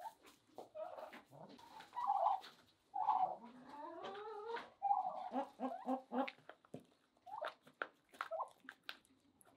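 Chickens clucking and calling, with a quick run of clucks about halfway through. Near the end, sharp taps of beaks pecking grain in a plastic feeder pan.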